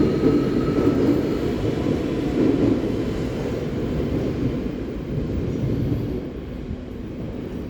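Passenger train rumbling along the platform track, the wheel and running noise gradually fading as it moves away.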